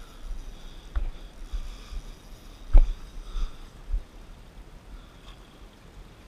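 Footfalls and knocks on breakwall boulders under a steady rush of wind on the microphone, with a few sharp thumps, the loudest about three seconds in.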